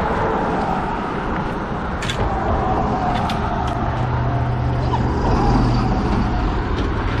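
Steady rumble of road traffic, swelling as a vehicle passes about five seconds in, with a few light clicks.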